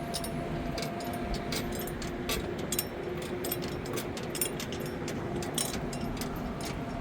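An engine running steadily at an even pitch, with many light clicks and rattles over it.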